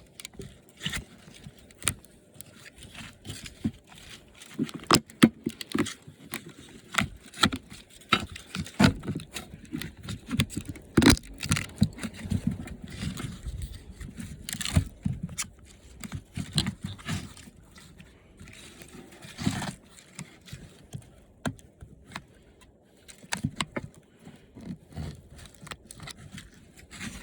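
Irregular clicks, knocks and scraping of plastic and metal parts being handled and pried apart while dismantling an old TV set, as a component is worked off a plastic lip.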